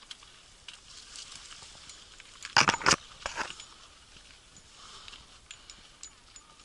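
Footsteps crunching on loose sandy, stony ground during an uphill hike, with a cluster of louder crunches or knocks about two and a half seconds in.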